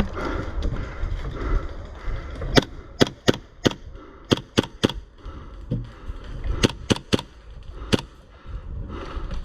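Airsoft guns firing single shots: about a dozen sharp cracks, in quick clusters of two to four, starting a couple of seconds in and ending near the end.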